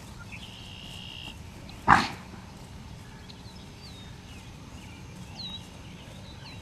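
A single dog bark about two seconds in, over a steady outdoor background with a few faint high chirps.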